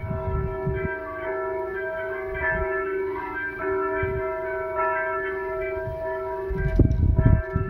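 Bell-like chiming tones ringing on and overlapping, changing note now and then. Low rumbling thumps break in near the end and are the loudest sound.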